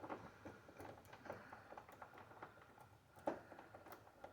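Faint, irregular metal clicking and scraping of a Pro-Lok PKX-11 rake pick worked back and forth over the pins of a five-pin tumbler lock cylinder under light torsion-wrench tension, with one louder click about three seconds in.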